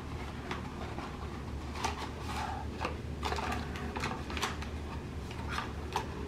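Cardboard box being opened and a folded paper leaflet pulled out and unfolded: irregular rustles, crinkles and small clicks, busiest in the middle and again near the end, over a steady low room hum.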